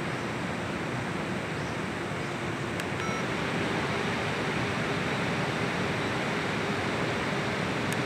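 COOLIFY2 neck cooler's fans blowing, a steady rush of air with a faint motor hum. It beeps once about three seconds in as it steps up from the C2 to the C3 fan setting, and the airflow gets a little louder.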